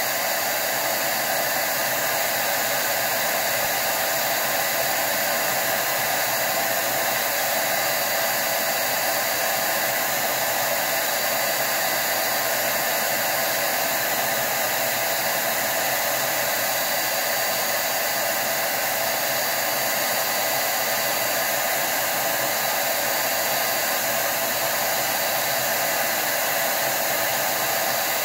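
DataVac electric duster running steadily: a continuous rush of air with a faint high whine, blowing hot, high-pressure air through a vaporizer cooling chamber and pushing the melted build-up out of it.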